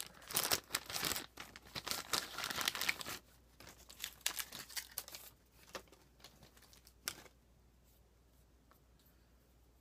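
Thin clear plastic toy bag being torn open and crinkled by hand: dense crinkling for about three seconds, thinning to scattered rustles and a couple of sharp clicks that stop about seven seconds in.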